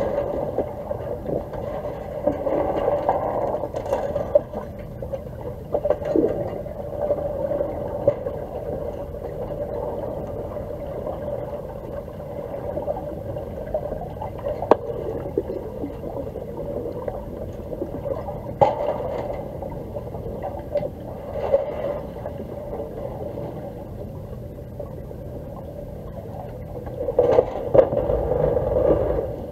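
Underwater pool ambience picked up by a submerged camera: a steady muffled hum with scattered sharp clicks and knocks, growing louder and busier for a couple of seconds near the end.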